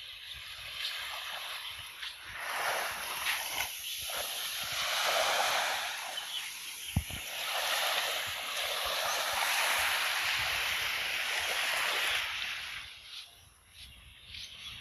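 Small waves washing up on a sandy shore, the surf noise swelling and fading away several times, with one brief sharp tap about seven seconds in.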